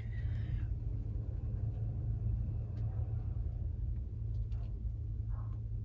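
A steady low hum, with a few faint clicks over it.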